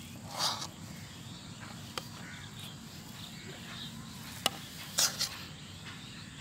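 Steel ladle scooping khichuri out of a metal pot and serving it onto plates: two short scrapes and a few sharp metal clicks against the pot rim and plates.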